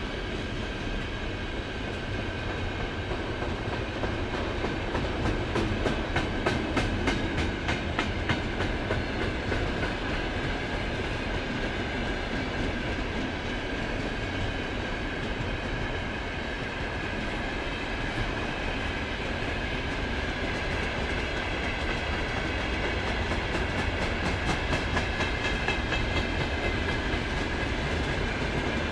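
Freight wagons of a long mixed freight train (covered hoppers, gondolas, tank cars) rolling past at speed, a steady rumble with runs of quick clickety-clack as the wheel sets cross rail joints, and a thin steady high tone over it.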